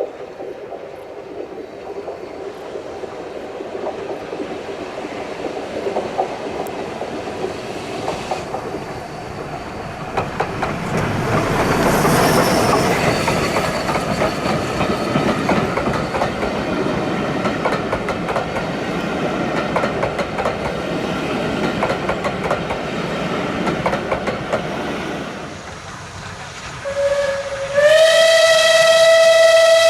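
A steam train running past on the rails, its noise building to its loudest about twelve seconds in, with wheels clattering over the rail joints. Near the end the locomotive's steam whistle sounds: a short, quieter note and then a loud, long blast that steps up in pitch.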